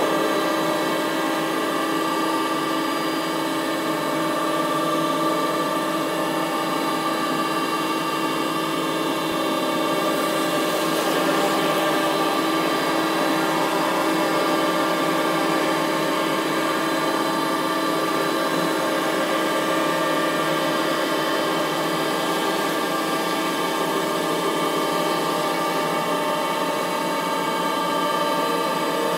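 CNC milling machine running, its spindle turning an end mill that cuts into a head of lettuce: a steady machine whine with several held tones over a hiss, briefly brighter about ten seconds in.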